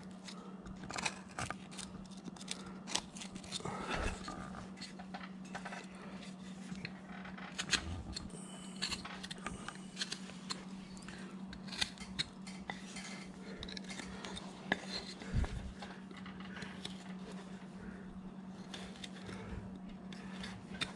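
A small hand carving tool slicing and paring wood in short strokes: irregular crisp cutting clicks and scrapes with a few sharper snaps as chips break free. A faint steady hum sits underneath.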